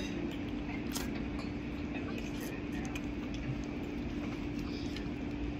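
Steady mechanical hum at one constant pitch over a background of noise, with a faint click about a second in.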